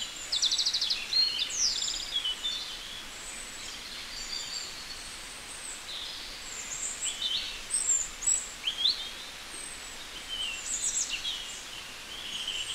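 Small birds chirping and trilling: short high calls, quick rising and falling sweeps and fast rattling trills, coming every second or two over a faint steady hiss.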